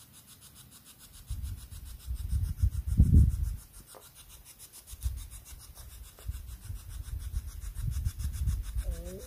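Irregular low rubbing and rumbling noise in uneven gusts, loudest about three seconds in, with a brief pitched sound near the end.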